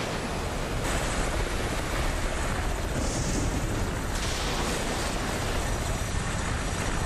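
Continuous rumbling noise of a volcanic eruption, a dense unbroken wash with brief hissing surges about one, three and four seconds in.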